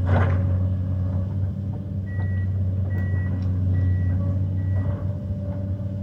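Tracked excavator's diesel engine running steadily under load while its bucket tears at old linden branches, with a loud crunch of breaking wood right at the start. From about two seconds in come four short high tones, evenly spaced under a second apart.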